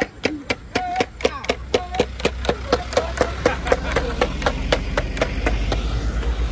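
Music with a quick, steady beat, about four or five strokes a second, with a truck engine rumbling underneath that grows louder near the end as a loaded box truck drives past.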